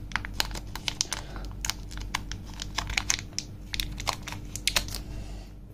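Crinkling and small irregular crackles of a bundled USB-C data cable being handled and its wrapping pulled off by hand.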